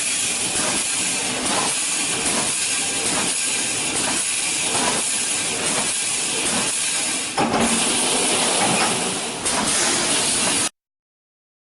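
Automatic wire mesh welding machine running: a steady hissing mechanical din with faint regular beats about twice a second. It cuts off suddenly near the end.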